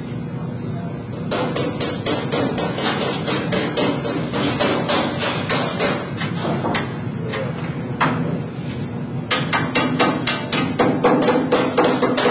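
Rubber mallet beating a sheet-metal duct cheek piece over the edge of a box and pan brake to form the bend: quick repeated blows, a brief lull about two-thirds of the way through, then faster blows again.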